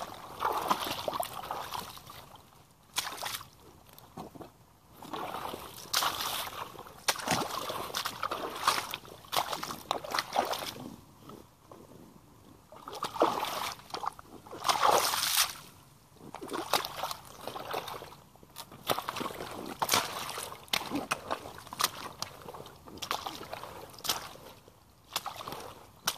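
Rubber boots splashing and squelching through mud and shallow muddy water, step after step in irregular bursts.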